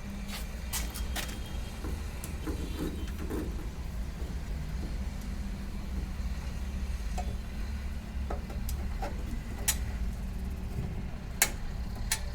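Scattered clicks and light metallic knocks of hand tools working a cable's ring lug onto a terminal, over a steady low background rumble.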